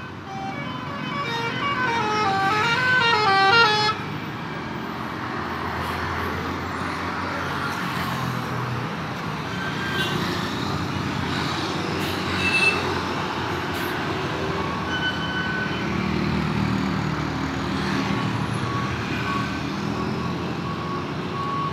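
Telolet multi-tone bus horn playing a quick melody whose notes step up and down, for about four seconds, then stopping abruptly. After it, a tour bus engine runs under street noise, with a few short high beeps.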